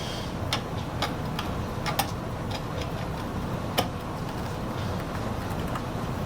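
Irregular light clicks and taps of the parts of a drill bit sharpener being handled and fitted back together by hand, over a steady low hum.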